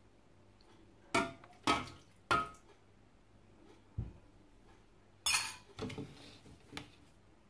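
A spoon knocking against a bowl three times, about half a second apart, each clink ringing briefly, as hydrated tapioca is scraped into the robot's bowl. A dull thump follows, then a short scrape and a few light clicks of kitchenware being handled.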